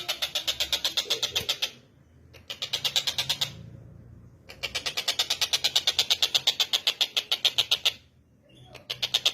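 Tengkek buto bird calling in long runs of rapid, sharp, evenly repeated notes, about nine a second, broken by short pauses about two seconds in, near four seconds and about eight seconds in.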